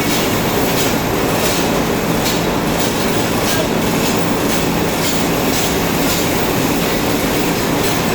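Loud, steady running noise of textile mill machinery, with sharp clicks recurring about once or twice a second.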